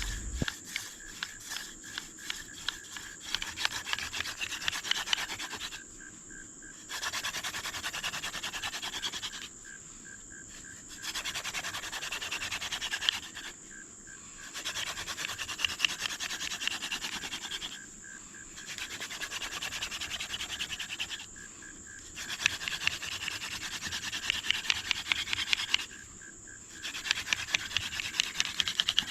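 Hand drill friction fire: a dog fennel spindle spun between the palms grinds against a hickory fireboard with a dry scraping rub. It comes in about seven bouts of a few seconds each, with short pauses between them.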